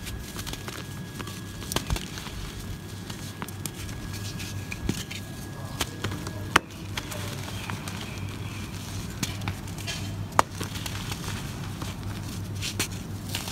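Dry mud-floor chunks crushed and crumbled in the hand, giving irregular crunching and crackling with a couple of sharper snaps as pieces break, over a low steady hum.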